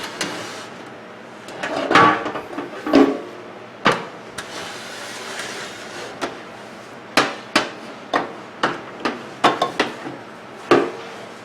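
A series of sharp clicks and knocks from the microwave and its parts being handled: a few scattered ones at first, then a quicker run of about a dozen near the end.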